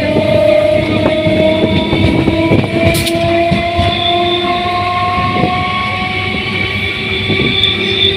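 Electric suburban local train running, with a steady multi-toned whine that slowly rises in pitch and wheels clicking and clattering over the rail joints.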